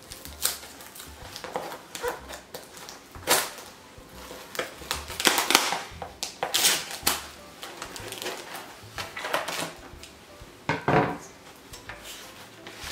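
Scissors cutting through a stiff cardboard mailer, with irregular snips, scrapes and crackles of cardboard as it is worked and pried open.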